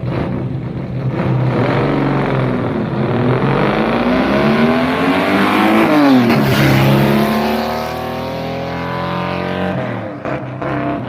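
Loud V12 engine of the Group 44 Jaguar E-Type race car running. The sound swells to its loudest about six seconds in and eases off after.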